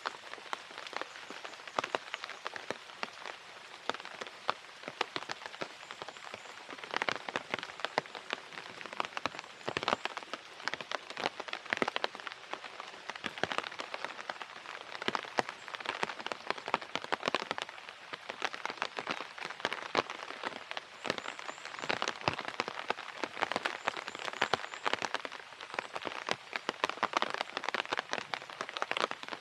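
Steady rain, with many sharp individual drop impacts heard close by over a constant hiss.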